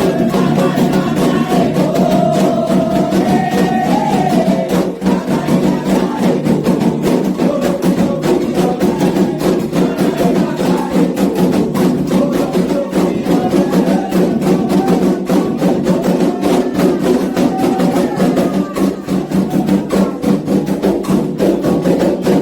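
Candomblé xiré music: atabaques played in a fast, dense rhythm with a struck bell keeping time, and voices singing a melody over the drums.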